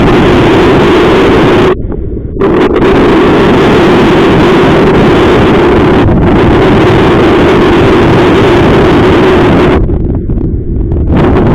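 Strong wind of about 25 mph buffeting the microphone, a loud, steady rushing that drops away briefly about two seconds in and again near the end.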